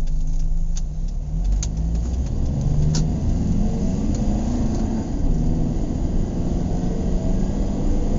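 Interior of a car on the move: steady engine hum and road noise, the engine note rising and falling a little. A few light clicks come in the first three seconds.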